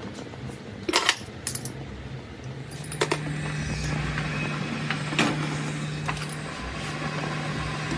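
A few sharp metallic clinks, then about three seconds in a metal lathe starts and runs with a steady hum as its three-jaw chuck spins.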